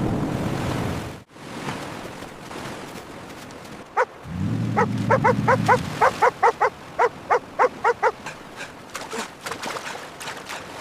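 A dog yelping: one call about four seconds in, then a quick run of about a dozen short, high yelping barks, trailing off into fainter ones near the end. Before that, a steady rushing noise cuts off abruptly about a second in.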